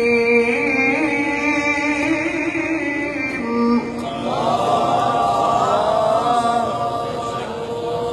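A man's voice reciting the Qur'an in melodic tilawah style through a microphone, holding long, ornamented notes, then climbing to a higher, louder phrase about four seconds in.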